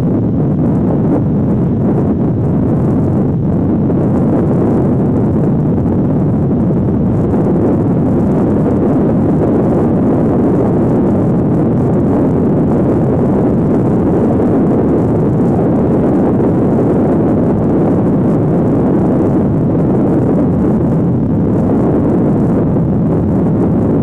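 Loud, steady wind noise buffeting the microphone, a dense low rush.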